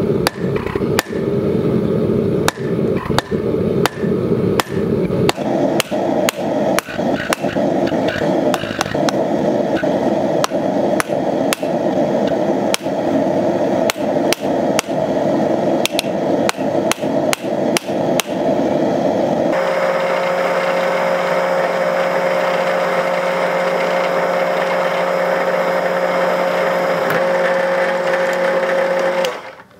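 Hammer blows, about two a second, on a red-hot steel bar held upright on a railroad-rail anvil, upsetting its end. They stop a little past two-thirds of the way in, and a drill takes over with a steady motor whine, boring through a steel sword guard until it cuts off just before the end.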